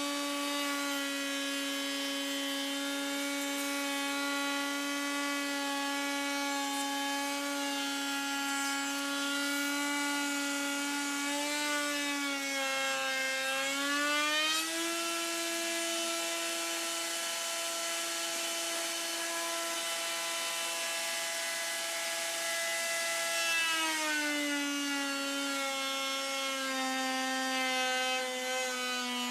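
Router in a router table running with a panel-raising bit while a door panel is fed past it: a steady whine. The pitch steps up about halfway through as the cut ends and the bit spins free. It drops back about ten seconds later as the next edge of the panel goes into the bit and loads the motor.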